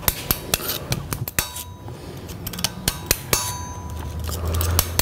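Small hammer tapping a hardened steel chisel in irregular light metallic strikes, some with a short ring, chipping the last fragments of a broken tap out of a threaded hole. A low steady hum comes up in the second half.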